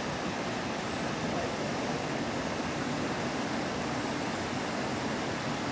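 Steady rush of white water pouring over boulders in a rocky river's small cascades below a waterfall.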